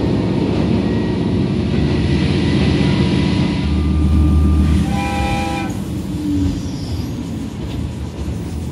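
KiHa 120 diesel railcar running, heard from inside the car, with a steady rumble of engine and wheels. About five seconds in, the train's horn gives one short blast of under a second.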